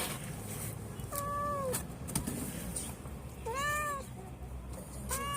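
A domestic mother cat meowing three times, each a short arching call, the last starting near the end.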